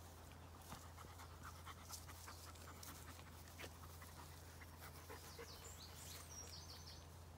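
A dog panting faintly, with scattered small ticks, against a near-silent background.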